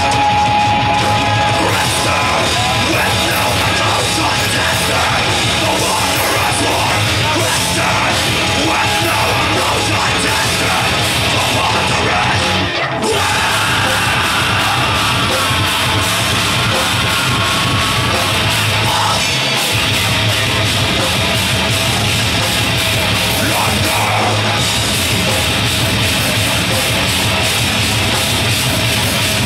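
Heavy metal band playing live: distorted guitars, bass and drums with shouted vocals, loud and dense, broken by a split-second stop about halfway through.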